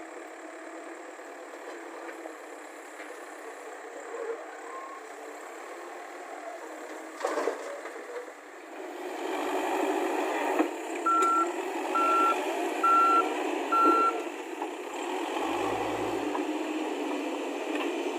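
A heavy diesel machine idling, then running louder from about nine seconds in, with a vehicle reversing alarm beeping four times at an even pace. A single knock comes about seven seconds in.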